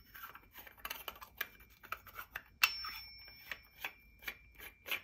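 Light metallic clicks and ticks of a lightsaber's metal crossguard hilt parts being handled as a side emitter is screwed onto its thread by hand, with one sharper metal tap about two and a half seconds in that rings briefly.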